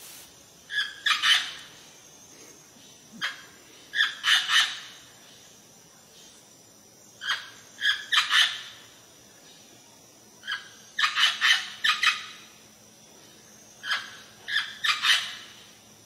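Amazon parrot calling: harsh squawks in short bursts of three or four notes, each burst often led by a single note, repeating about every three to four seconds.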